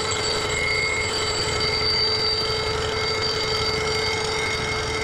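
A Bridgeport milling machine is running a large shop-built fly cutter that takes a light two-thousandths skim cut across a Honda GX610 aluminum cylinder head's gasket face. It makes a steady cutting noise with a high, even ringing whine.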